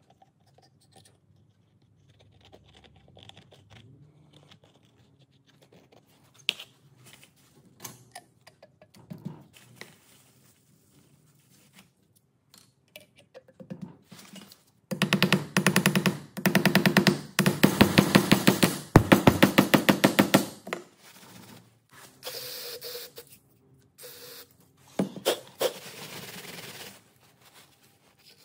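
Rapid, evenly spaced metal taps in several bursts over about five seconds, from work on a Zetor 3011 cast-iron cylinder head with freshly sealed core plugs. Softer rubbing follows near the end.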